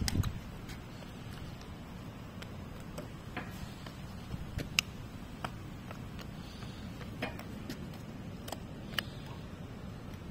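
African ostrich pecking at eggshell and sandy ground: scattered sharp ticks of its beak striking, at irregular intervals, over a low steady background rumble.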